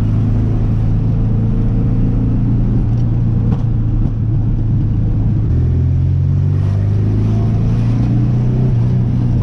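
1970 Volkswagen Beetle's air-cooled flat-four engine running under way, heard from inside the cabin, its note stepping down about five and a half seconds in. A few faint exhaust pops come through when the throttle lifts on the shifts, the backfires this stock Beetle gives off.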